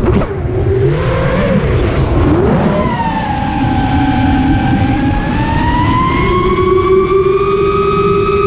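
The brushless motors and propellers of a 5-inch FPV freestyle quadcopter whining with the throttle. The pitch rises and dips quickly for the first few seconds, then holds a steady tone that slowly climbs before dropping sharply at the very end, over a low rumble of air noise.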